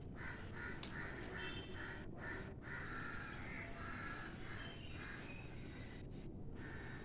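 Crows cawing in a quick run of short repeated calls, about three a second, over a steady low background hum.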